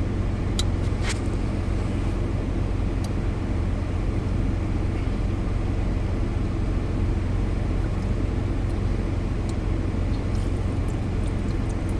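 A steady low machine hum with a few faint clicks near the start and again near the end.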